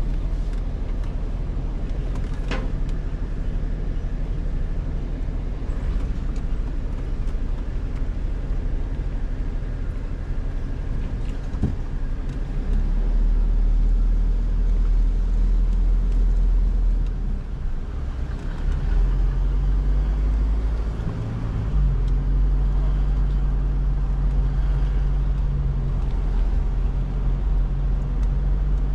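A vehicle engine running: a steady low rumble, with a steady engine hum coming in about two-thirds of the way through.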